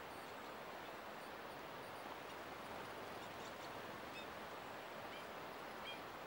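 Two-barred crossbill giving three short, soft calls in the second half, over a steady background hiss.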